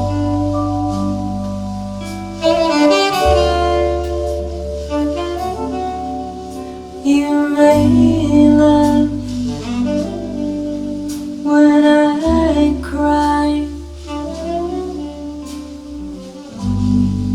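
Jazz instrumental intro with a tenor saxophone playing the melody over snare drum brushes and long low bass notes, played back through ATC SCM 11 loudspeakers in a room.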